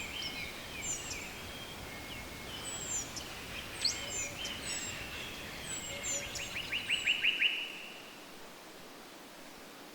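Several songbirds singing and chirping, with scattered high thin chirps and, about seven seconds in, one bird's quick run of about eight repeated falling notes. After that the birdsong stops, leaving only a faint steady hiss.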